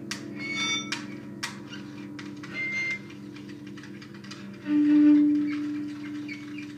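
Electric bass guitar lying flat on the floor, played through an amplifier: a low pulsing drone under scattered clicks and scrapes on the strings. About two-thirds of the way through, a louder held low note swells in.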